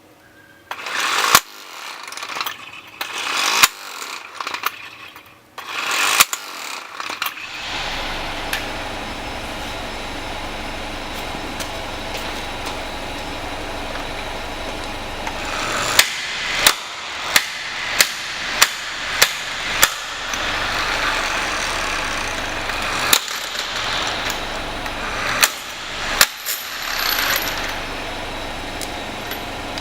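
12-volt electric impact wrench, starting with short bursts and clicks, then running with a steady, dense rattle from about eight seconds in. The rattle is broken by a series of seven sharp clanks a little over half a second apart, with more short bursts near the end.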